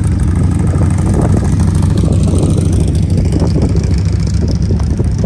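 Motorcycle engine running steadily at low speed, close to the microphone.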